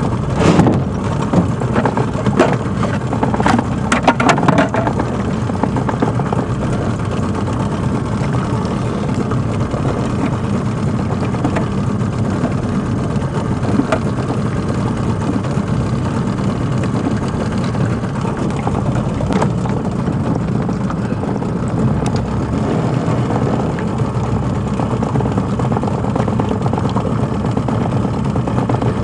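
Steady low rumble on a small open boat while a gill net is hauled aboard by hand, with a cluster of knocks and rattles in the first few seconds and a few single knocks later.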